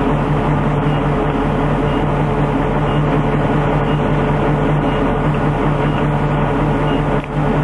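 Military convoy vehicle's engine running steadily, a constant droning hum heard from the turret, with a brief dip in level about seven seconds in.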